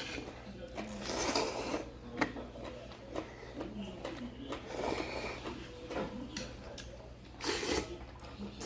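Eating noises at a restaurant table, several short noisy bursts of slurping and chewing, over a steady low electrical hum.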